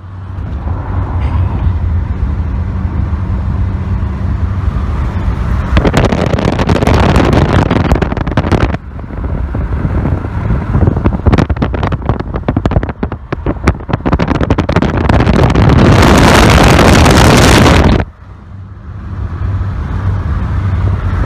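Inside a moving Volkswagen car: a steady low engine and road hum, with loud rushes of wind noise twice (about a third of the way in and again near the end) and a gusty, crackling stretch in between.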